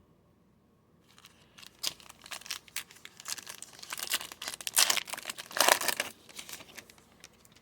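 Thin plastic crinkling and rustling in quick irregular crackles as trading cards are handled. It starts about a second in and is loudest around five to six seconds in.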